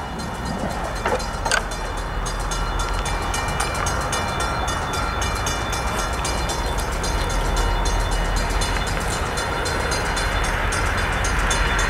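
Diesel freight locomotives, an SD60M leading, approaching with a steady low engine rumble that grows slightly louder.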